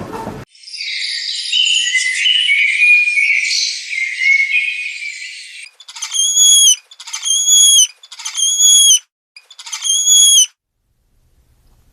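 Animal calls: about five seconds of dense, high-pitched chirping, then four high, whistled calls repeated about a second apart.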